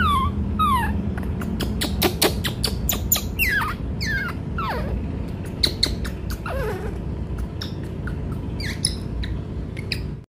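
Newborn macaque giving about six short squeals, each falling steeply in pitch, among a run of sharp clicks.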